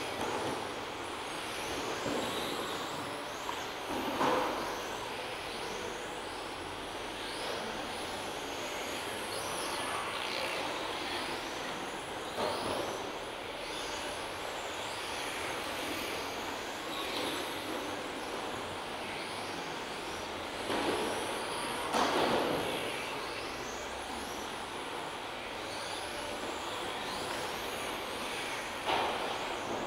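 Several 1:10 electric touring RC cars with 17.5-turn brushless motors racing on carpet: a steady whir of motors and tyres with short rising and falling whines as cars pass. There are a few louder swells, about four seconds in, twice around the twenty-second mark, and near the end.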